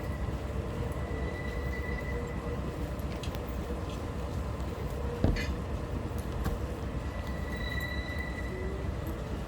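Steady low rumble of a standing railway locomotive, with a faint whine that comes and goes, and one sharp knock a little past halfway.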